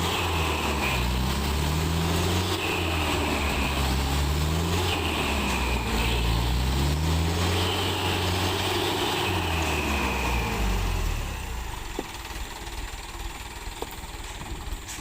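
Truck engine running hard under load, its revs rising and falling as it strains to climb, then easing off to a lower, quieter running about eleven seconds in.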